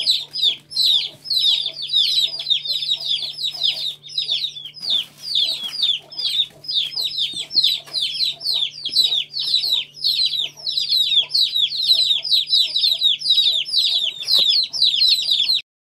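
A brood of young Aseel chicks peeping without pause: many high, downward-sliding cheeps overlapping, several a second. A faint steady hum lies underneath.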